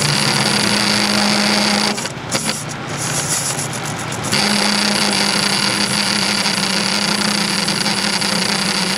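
Atlas metal lathe running while a parting tool cuts into a spinning cast-iron workpiece: a steady hum with a bright, high cutting noise. About two seconds in, the cutting noise drops away for about two seconds, then picks up again and holds steady.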